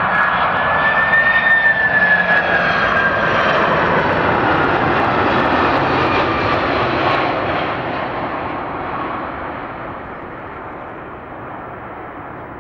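Jet engines of a cargo airliner passing close by: a loud roar with a high fan whine that slides down in pitch as the plane goes past. The roar then fades away over the last few seconds.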